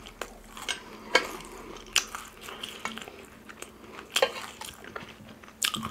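Close-miked eating: chewing and biting, with a handful of sharp clicks and crunches from food and utensils.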